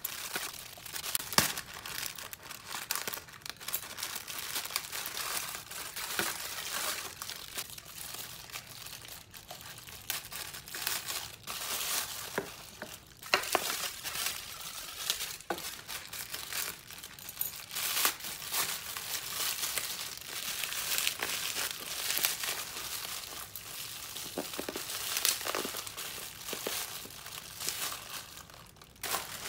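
Plastic packaging handled and unwrapped by hand: a plastic mailer bag and bubble wrap crinkling and rustling throughout, with many sharp crackles.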